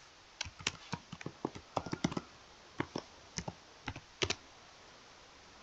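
Computer keyboard typing: an irregular run of quick keystrokes entering a password, which stops a little after four seconds in.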